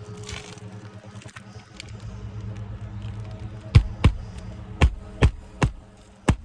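Six sharp knocks in quick, uneven succession over the last three seconds, from work on an asphalt shingle roof, with a steady low hum underneath.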